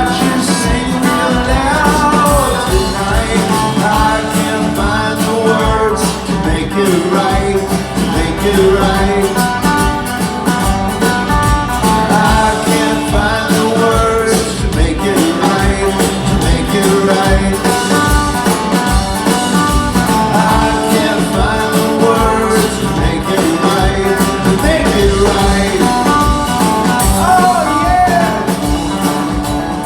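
Live alt-country rock band playing a song at a sound check: sung lead vocal over electric guitars, bass and a steady drum beat.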